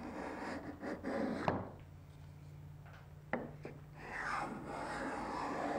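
Veritas cabinet scraper pushed along a wooden board, its blade taking thin curled shavings, in two strokes. A couple of sharp knocks fall in the quieter spell between them.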